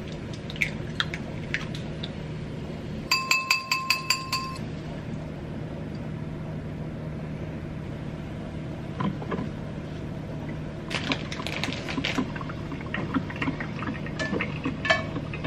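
Kitchen cooking sounds over a steady low hum. About three seconds in comes a quick run of ringing clinks, a fork whisking eggs in a ceramic bowl. From about nine seconds on there are scattered scrapes and taps of a spatula working in a nonstick frying pan.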